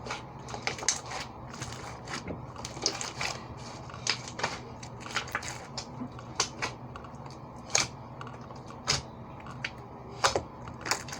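Irregular clicks and crackles of hands handling slime and its plastic container, scattered unevenly, over a steady low hum.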